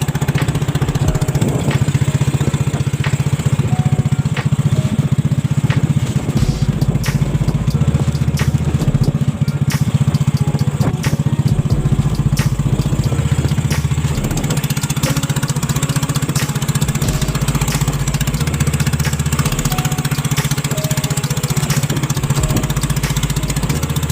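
Small engine running steadily at an even speed, with a strong low hum.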